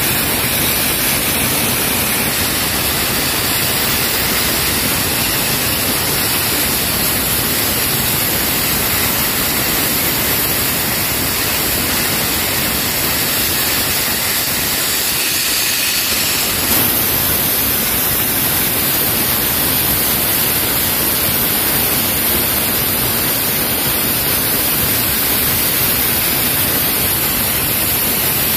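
Sandblasting nozzle blasting grit with compressed air against a rusty excavator hydraulic cylinder to strip it for repainting: a steady, loud hiss. The hiss turns a little brighter just past halfway.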